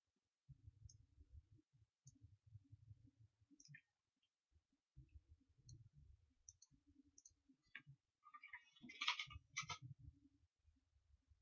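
Faint computer keyboard keystrokes and mouse clicks: scattered short clicks with soft low thumps, and a louder flurry of clicks about nine seconds in.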